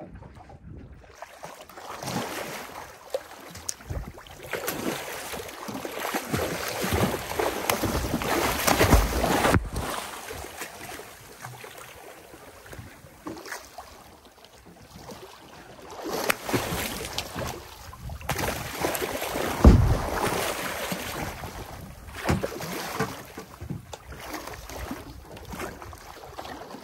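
Sea water splashing and sloshing against a small boat's hull as a hooked blue shark thrashes at the surface alongside, with wind on the microphone. The splashing swells twice, around eight to ten seconds in and again from about sixteen to twenty seconds, with a few sharp slaps.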